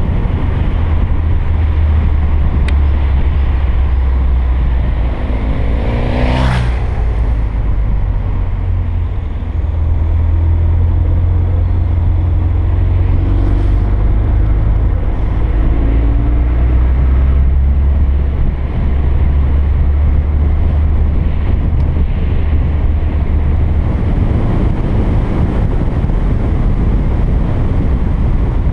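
Mini John Cooper Works driving on a winding road, heard from a bonnet-mounted camera: a steady low rumble of engine, tyres and wind buffeting the microphone. A brief sweep stands out about six seconds in, with a fainter one near fourteen seconds.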